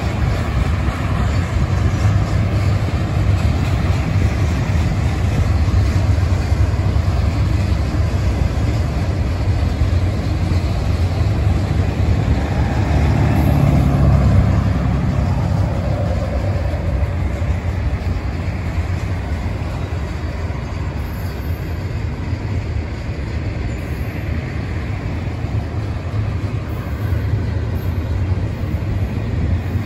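Double-stack container train of well cars rolling past, a steady low rumble of wheels on rail. About halfway through, a pickup truck passes close by on the road, briefly the loudest sound, its pitch falling as it goes by.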